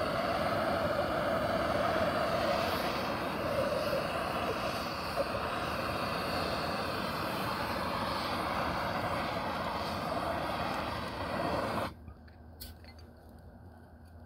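Handheld blowtorch flame burning steadily as it heats the metal well-head fitting to soften and melt out a broken plastic insert. The flame cuts off suddenly about 12 seconds in, followed by a single sharp click.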